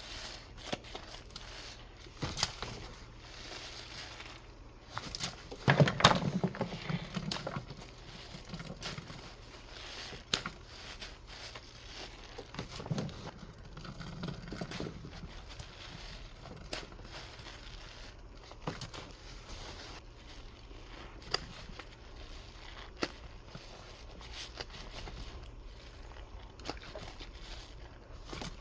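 Thick dish-soap suds crackling and squishing as they are squeezed and handled, with many small wet pops throughout and a louder squelch about six seconds in.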